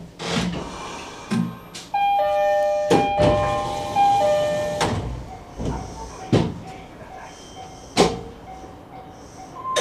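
Cab of a JR East E131-1000 series electric train: a series of sharp clunks at uneven intervals, with a two-note electronic chime about two seconds in and shorter repeated tones after it.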